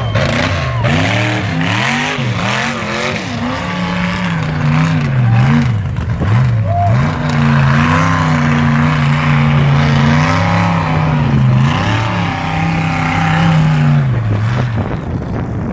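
A lifted mud truck's engine revving hard as it churns through the mud pit: the revs rise and fall several times, then hold high and steady for several seconds before dropping away near the end.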